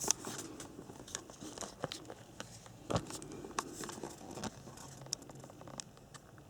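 Packaging being handled: crinkling and rustling with scattered sharp clicks and knocks, quieter near the end.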